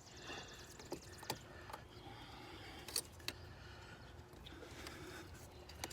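A few sharp clicks and small knocks of hands working a new EVAP purge valve onto its hose and plugging in its connector, over a faint background hum.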